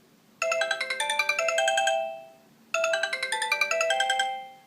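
Sony Ericsson Z750i mobile phone playing its original Sony Ericsson ringtone: a quick melody of short notes, heard twice, each run ending on longer held notes.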